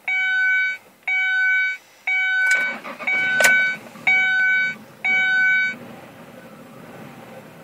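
A dashboard warning chime sounds six times, about once a second, while the 2001 Ford Escape's engine cranks and catches about two and a half seconds in, with a sharp click about a second later. The cold engine then settles into a steady idle, which the owner says runs rough only when cold, with no error codes.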